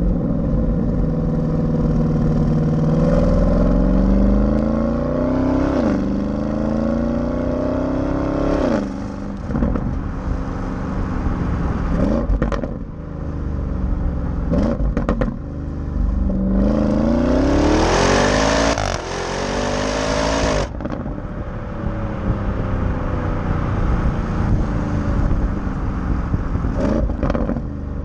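Porsche Cayenne Turbo GT's twin-turbo V8 exhaust heard right at the tailpipes while driving. The note climbs with the revs and drops back at each upshift, with one hard pull about 17 seconds in that brings a loud rush of hiss. A few short sharp cracks come from the exhaust around 12 and 15 seconds in and again near the end.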